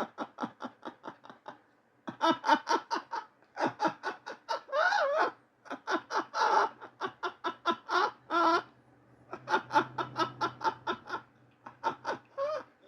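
A man laughing hard in long bouts of rapid breathy pulses, several a second, with short pauses for breath between bouts.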